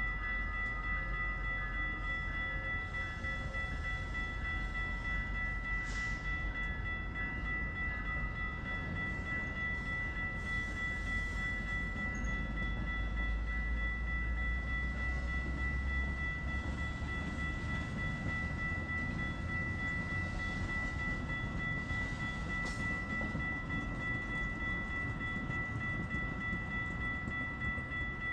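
Metra commuter train running past, a steady low rumble with a continuous high-pitched whine over it; the rumble is heaviest for the first half and eases after that.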